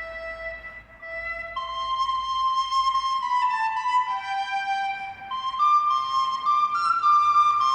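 Music: a slow melody of held notes on a single pitched instrument, rising and falling from note to note.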